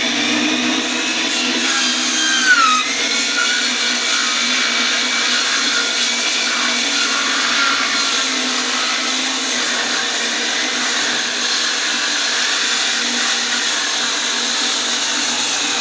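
Electric saw running steadily under load while ripping lengthwise through a heavy ash log, its blade giving a wavering whine over the motor's hum. The motor is working hard enough that it has been overheating and shutting down.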